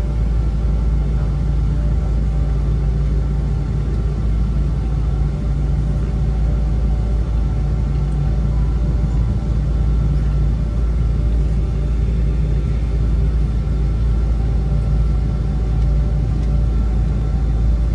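Steady cabin noise inside a Boeing 777-200 taxiing after landing: the low rumble of the engines at taxi power and the airframe rolling, with a few steady hum tones over it.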